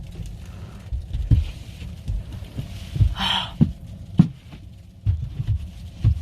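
Snow being scraped off a car windshield. There is one scraping stroke about three seconds in, among irregular low thuds.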